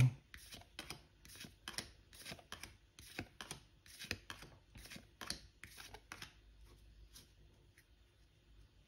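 Trading cards being flicked off the top of a held stack one at a time, a quick papery snap about three times a second, thinning out and growing fainter after about six seconds.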